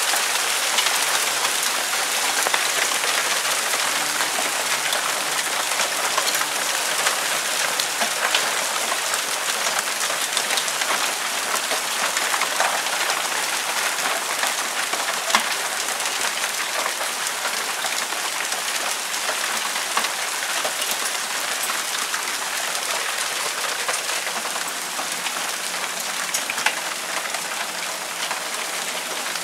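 Hail and rain falling steadily, a dense patter of many small impacts with a few louder single hits. It eases slightly near the end.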